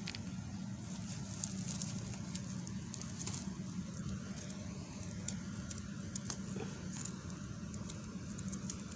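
Small clicks and scrapes of loose stones being handled and knocked together, over a steady low hum.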